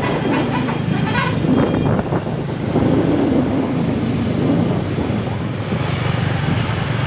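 Diesel bus engine running steadily close by, a low rumble that holds throughout, with street noise around it.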